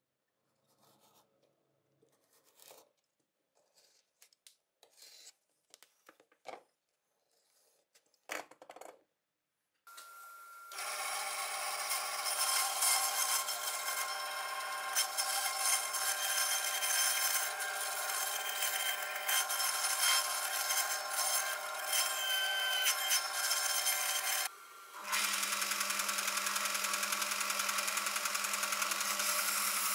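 Faint scraping of a utility knife blade scoring a cork sheet, then about ten seconds in a small band saw starts and runs steadily, cutting out a cork disc. About twenty-five seconds in it stops and a belt sander runs in its place, sanding the edge of the cork disc.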